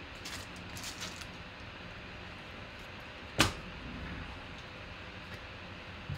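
Handling noises on a tabletop: a few light clicks and rustles in the first second, a single sharp knock about three and a half seconds in, and a smaller knock near the end, over a steady low room hum.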